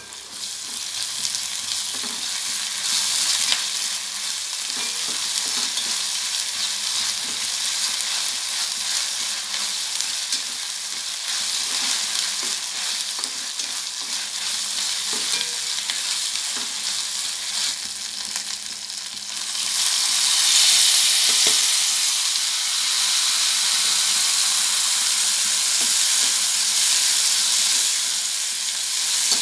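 Chopped onions, and then chopped tomatoes, sizzling in hot oil in a steel frying pan, stirred with a steel ladle that scrapes and taps lightly against the pan. The sizzle grows louder about two-thirds of the way through.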